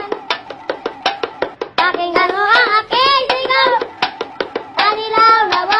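Music: a fast, even beat of sharp taps, about six a second, with a voice singing a short wordless melody through the middle and again near the end.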